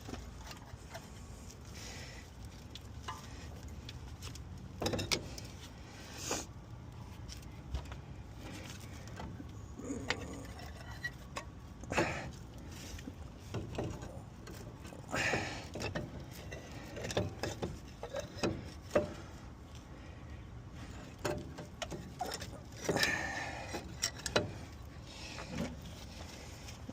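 Scattered clinks and knocks of metal tools and parts being handled, irregular and spread out, over a steady low background noise.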